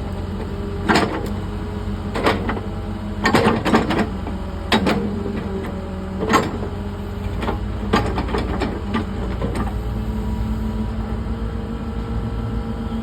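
Excavator engine running steadily, with a hydraulic tone that shifts in pitch as the arm works. Over it come about a dozen sharp metal clanks, spread unevenly through the first nine seconds, as the quick coupler and bucket are worked.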